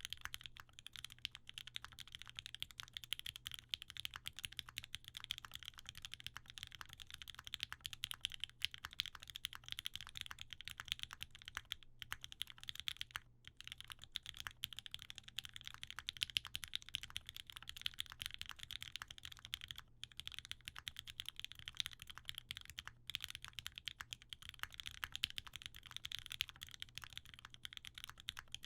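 Typing on a Leaf65 mechanical keyboard with an FR4 plate, lubed OP Black switches and GMK ABS keycaps: a fast, continuous run of keystrokes with a few short pauses.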